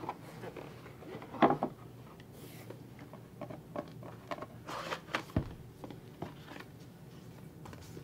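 Cardboard packaging insert and the Bird Buddy camera module being handled: scattered rustles, scrapes and light knocks, the loudest a sharp knock about a second and a half in.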